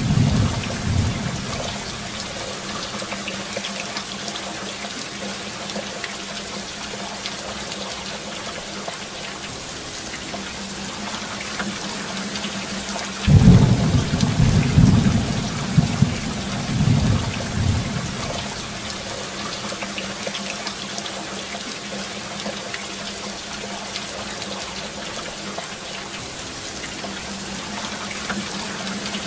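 Steady rain falling, with a thunderclap about halfway through that rumbles low for several seconds before dying back into the rain.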